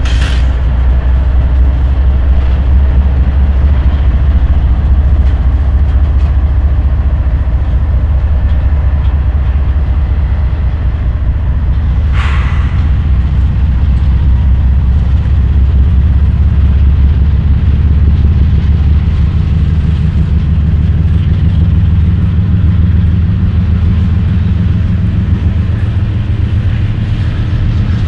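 Canadian Pacific GE diesel-electric locomotives and coal hoppers of a moving freight train: a loud, steady low engine drone with wheels on rail. A short burst of higher-pitched noise stands out about twelve seconds in.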